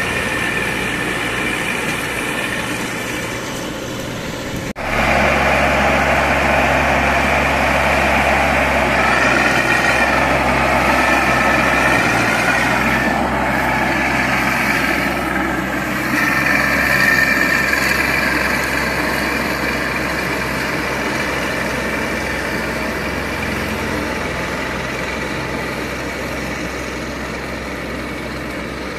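Baroness LM320AF ride-on front-deck mower's engine running steadily under load while the mower cuts tall grass. The sound breaks off sharply about five seconds in and comes back louder.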